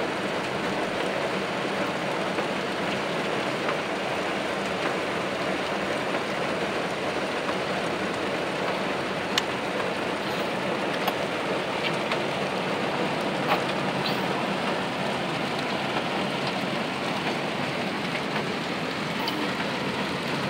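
Rain falling steadily on a car's roof and windshield, heard from inside the cabin as an even hiss, with a few sharper ticks of single drops in the middle.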